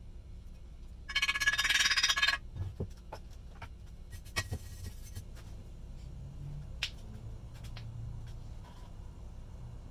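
A harsh scraping sound lasting just over a second, then scattered light clicks and knocks, typical of hand work on a rusty old hand plane's parts.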